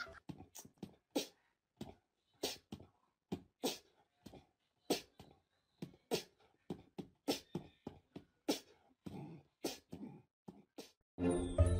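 Small dog sniffing and huffing in short sharp bursts, irregularly spaced at about two or three a second, as it noses warily at a toy frog. Music comes in just before the end.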